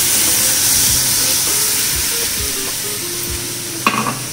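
Cold milk poured into a hot pan of butter-flour roux with fried onion, sizzling and hissing loudly, the sizzle gradually easing off. A short, sharp sound near the end.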